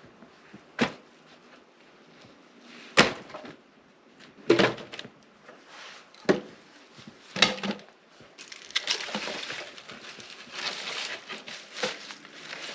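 Dead wood snapping in the woods: five sharp cracks spaced a second or two apart, then several seconds of crunching and rustling.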